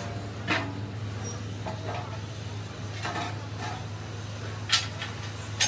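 Steel tractor rear wheel rim knocking and clanking against its welded centre disc and stand as it is tilted and set in place, a few sharp metallic knocks with brief ringing. A steady low hum of workshop machinery runs underneath.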